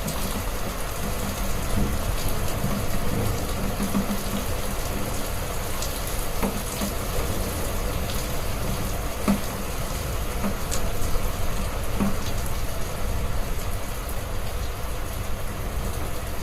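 Heavy rain falling steadily, with scattered sharp drop taps through it.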